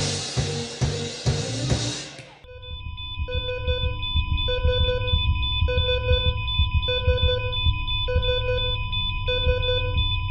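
Music with a steady drum beat cuts off about two and a half seconds in. It gives way to a hospital heart monitor beeping regularly, about once every 1.2 seconds, over a steady electronic hum and a low rumble.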